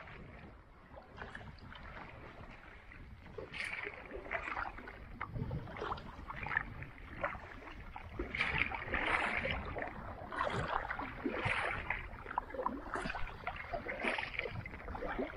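Kayak paddle strokes splashing and dripping in the water, a stroke every second or so, growing stronger about four seconds in.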